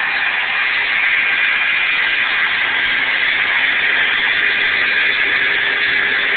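CNC router table's spindle router running at about 24,000 rpm, its 1/8-inch two-flute carbide down-cut bit cutting a shallow pass along a curve in a wood sheet: a steady high whine with cutting noise.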